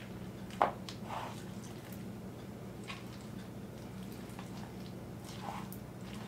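Wooden spoon stirring hot drained noodles into a chicken and cheese mixture in a bowl: soft wet squishing and scraping, with a sharper click about half a second in. A steady low hum runs underneath.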